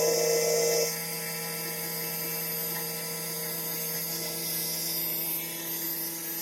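CNC milling machine running, its spindle giving a steady whine with a low hum, louder for about the first second and then settling to an even level.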